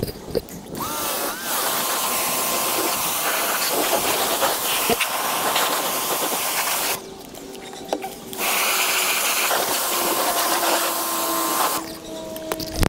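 Electric pressure washer spraying a car, a steady hiss of water over the motor's whine, which rises as it starts up about a second in. It stops for about a second and a half about seven seconds in, then starts again.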